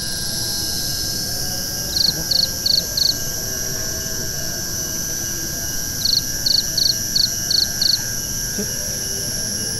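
Steady high-pitched chorus of forest insects. About two seconds in, a short, sharp, high chirping note repeats four times, about three a second; it comes again six times near the middle.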